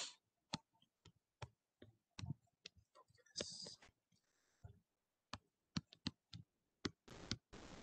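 Faint, irregular clicks and light taps from a computer pointing device used to draw on a digital whiteboard, a few a second, with a short soft hiss about three and a half seconds in and again near the end.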